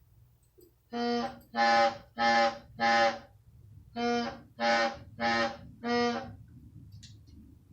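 A horn sounding two sets of four short blasts, each about half a second long, all on the same steady pitch.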